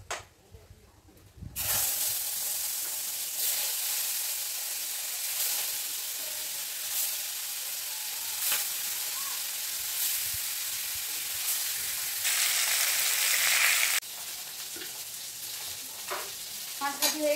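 Pieces of turmeric-coated fish sizzling in hot oil in a kadai, the hiss starting suddenly about a second and a half in as they go into the oil. The sizzle is quieter for the last few seconds.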